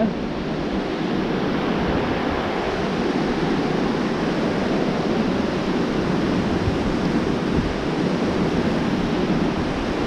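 Whitewater rapids rushing around an inflatable raft: a steady wash of churning river water.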